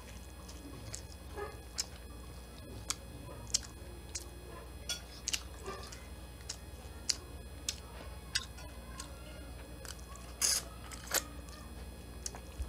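Close-miked eating sounds: chewing and wet mouth clicks and smacks of a person eating corn on the cob and garlic buttered shrimp by hand, scattered irregularly, with two louder ones about ten and a half and eleven seconds in.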